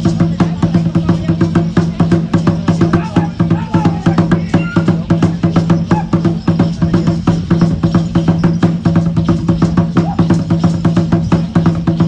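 Fast, steady drumming on an upright wooden huehuetl drum for Aztec-style dance, about four beats a second, over a steady low hum.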